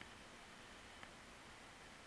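Near silence: a steady, even hiss, with one faint tick about halfway through.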